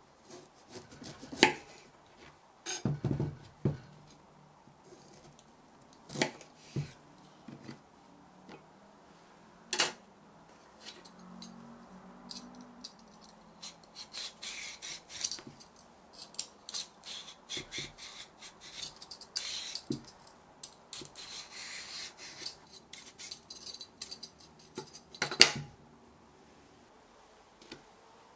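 A kitchen knife cuts through a sweet potato onto a wooden cutting board in a few sharp clicks and taps. Then a Y-peeler scrapes the skin off in quick rasping strokes, with a knock near the end.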